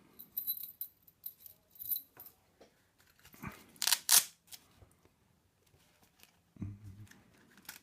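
Small metal clinks and rattles from a padlock and lock-picking tools being handled, with a louder scraping rustle about four seconds in.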